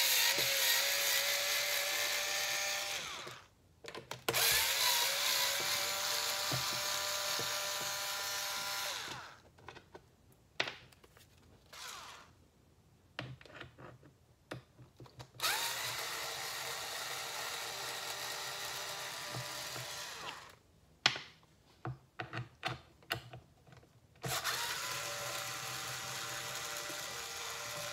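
Cordless electric screwdriver backing out the screws that hold the front footpad of a Onewheel XR. It makes four runs of a steady motor whine, each three to five seconds long, with short clicks of handling between them.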